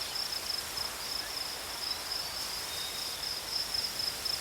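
Crickets or similar insects chirring in a continuous, high-pitched pulsing trill over faint outdoor background noise.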